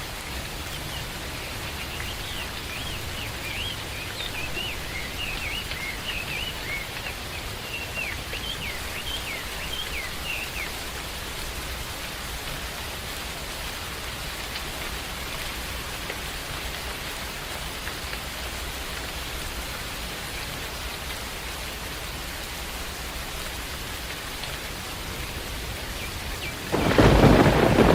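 Steady rain falling, with a bird singing a quick run of chirps over it for the first ten seconds or so. Near the end a sudden loud clap of thunder breaks in and goes on rumbling.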